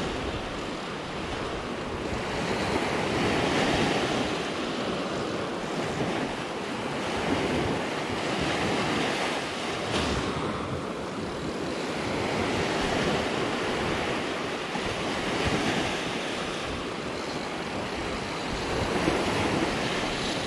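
Small surf waves breaking and washing up a sandy beach, swelling and fading every few seconds, with wind buffeting the microphone.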